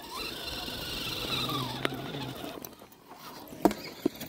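Brushless electric motor and drivetrain of an Axial UMG 6x6 RC truck whining as it drives, the whine rising and falling in pitch and stopping about halfway through. A few sharp clicks follow, the loudest near the end.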